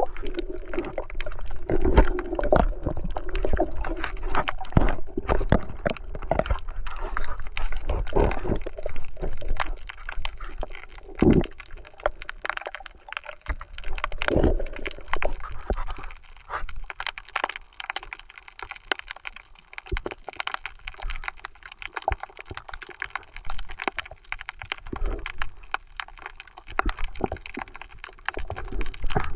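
Underwater sound: many sharp clicks and crackles over low muffled water movement, denser and louder in the first half.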